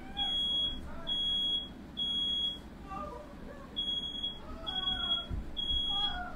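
Smoke alarm sounding a high-pitched beep in the standard three-beep pattern: three half-second beeps, a pause of about a second, then three more. It has been set off by smoke from a fire started by a firework lit indoors.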